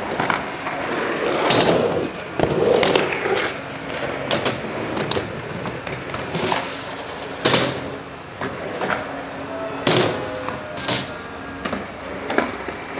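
Freestyle stunt scooter wheels rolling on concrete and ramps, with several sharp clacks as the scooter lands and hits the ramp; the loudest come about seven and a half and ten seconds in.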